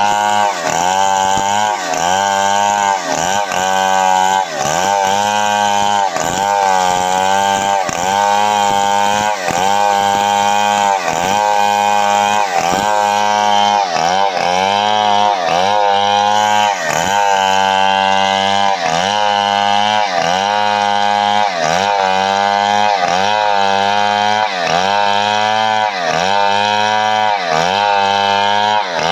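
Stihl 070 two-stroke chainsaw at high revs, ripping lengthwise through a coconut palm log. The engine pitch sags under load and recovers about once a second as the bar is pushed through the cut.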